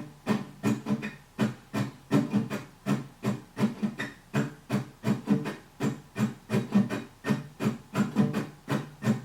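Guitar strummed in a steady, even rhythm of about three strokes a second, each stroke a sharp, short chord: the instrumental intro to a song.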